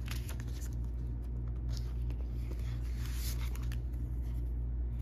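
Paper dollar bills rustling and crinkling as they are pulled from a clear plastic binder pocket and handled, in short irregular bursts over a steady low hum.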